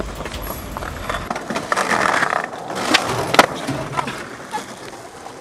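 Skateboard wheels rolling on rough pavement, then two sharp clacks of the board hitting the ground about three seconds in as the skater bails and the board flips over.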